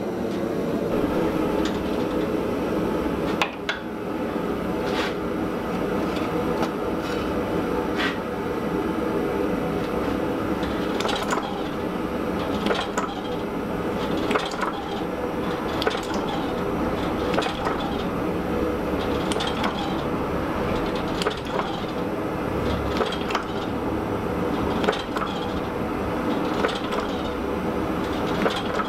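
Power hammer running in a rapid, steady clatter of blows, drawing out a red-hot sword billet between its dies. Occasional sharper clanks stand out.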